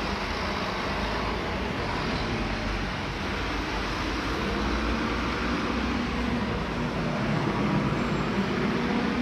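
City road traffic in heavy rain: a steady hiss of rain and wet road noise over the low hum of vehicle engines, which grows a little louder in the second half.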